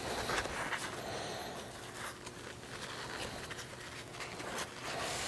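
Heavy-duty fabric rustling and scraping as a rail rod is worked through the sewn loops of a cargo bag, in short irregular bouts of handling.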